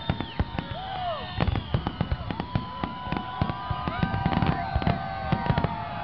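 Fireworks going off in rapid succession: many sharp bangs and crackles, with several whistling fireworks holding long steady shrieks over them.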